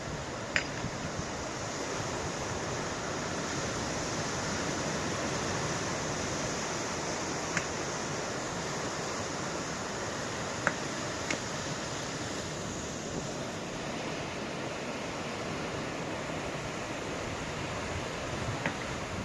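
Ocean surf as a steady rushing hiss that swells a little and eases off, with wind. A few brief sharp clicks sound through it.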